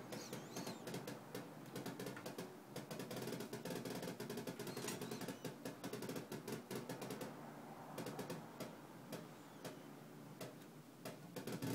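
Chaotic electronic oscillator circuit played through a speaker: a dense, irregular crackle of rapid clicks over a rough buzz, never settling into a steady tone, the audible side of the chaotic signal traced on the oscilloscope.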